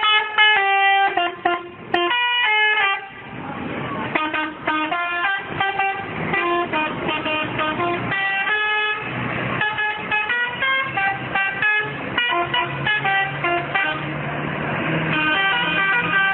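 Telolet multi-tone musical bus horn playing a quick tune of short notes, several tones sounding together and changing pitch in steps. A steady low hum runs underneath in the second half.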